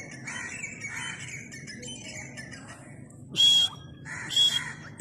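Teetar (francolin) giving two short, harsh squawking calls about a second apart in the second half, over a faint background.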